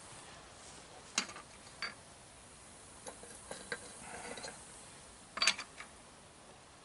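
A handful of sharp, scattered metallic clicks and clinks, the loudest about five and a half seconds in, from a gloved hand handling the metal grill grate that sits on top of a waste-oil melting furnace.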